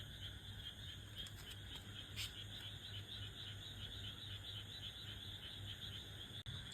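Crickets chirping steadily in a fast, pulsing trill, over a faint low hum.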